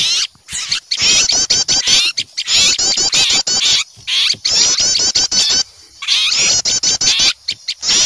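Small songbirds giving alarm calls in repeated bursts of rapid, high chirping about a second long, with short pauses between, as when small birds mob an owl; a bird-lure recording.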